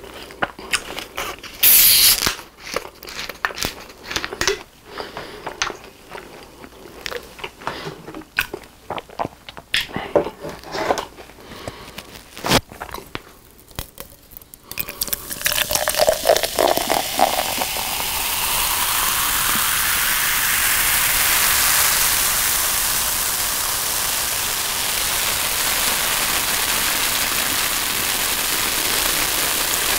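Coca-Cola bottle twisted open with a sharp hiss of escaping gas about two seconds in, followed by scattered clicks of handling. About halfway through, the cola is poured into a frosted mug with a brief glug, then a steady fizzing of carbonation heard close up from the microphone held at the mug.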